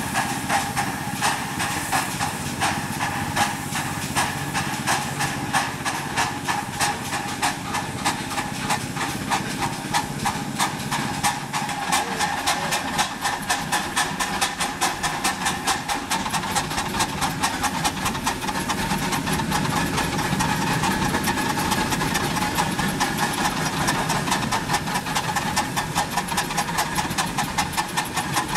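Several ride-on live steam locomotives chuffing together, their exhaust beats overlapping over a steady hiss of steam. The beats come faster and closer together in the second half.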